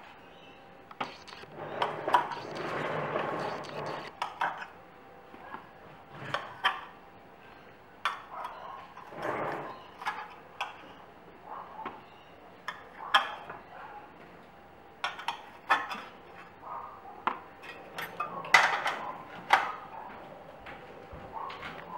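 Kitchen clatter: a scattered run of sharp clinks and knocks as baking pans and utensils are handled on the bench, with quiet talk now and then.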